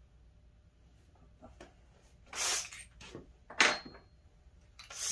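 Masking tape being pulled off its roll and torn off in a few short, scratchy rips, the loudest a sharp tear about three and a half seconds in.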